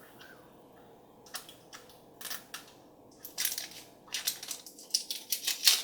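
Crinkly blind-bag wrapper of a Mashems surprise toy being handled and torn open. It gives a run of irregular crackles that starts about a second and a half in and grows busier toward the end.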